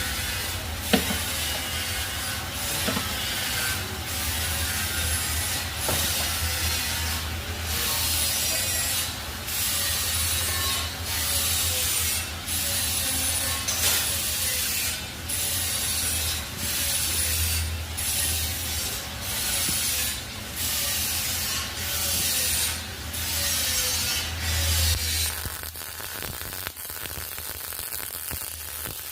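Arc welding laid down in short stitches: a dense crackle that breaks off briefly about once a second, over a steady low hum. The welding stops about 25 seconds in.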